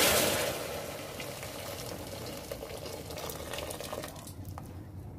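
Water pouring into a stainless steel pot and splashing; the pour gets much quieter about half a second in and trails off near the end, with a few small drips.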